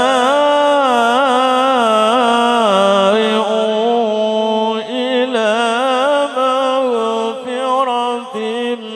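A man's solo Quran recitation (tilawah) into a microphone: a melodic, chanted line of long held notes with wavering ornaments, broken by short breaths a few times in the second half.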